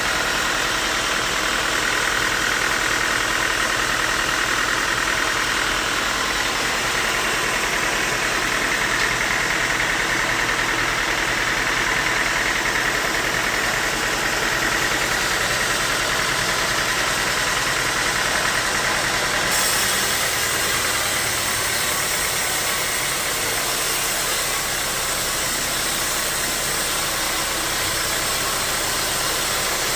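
Sawmill machinery running steadily, a continuous mechanical din with no breaks. The high hiss brightens suddenly about two-thirds of the way through.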